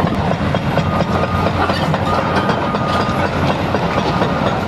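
Hydraulic demolition excavators breaking up a reinforced-concrete bridge: diesel engines running under a dense, continuous clatter of concrete and steel rebar being crushed and knocked down. A thin, steady high whine comes and goes around the middle.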